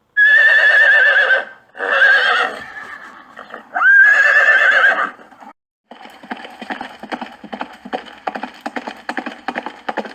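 A horse whinnying three times in a row with a quavering pitch, followed by a run of fast, rhythmic hoofbeat clip-clops.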